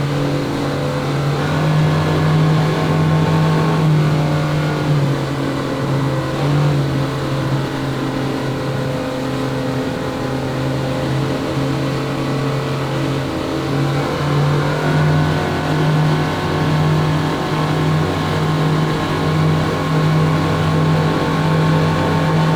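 Yamaha V8 boat engines running at high speed, a steady loud drone; about fourteen seconds in the pitch dips briefly, then climbs back.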